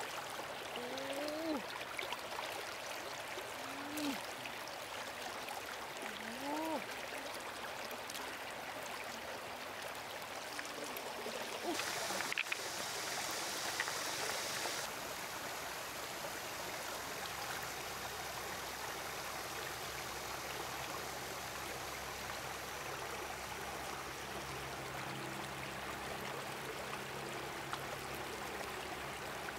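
Stream water running steadily over stones. In the first seven seconds there are a few short calls that rise and fall in pitch, and about twelve seconds in the water noise gets louder and hissier for about three seconds.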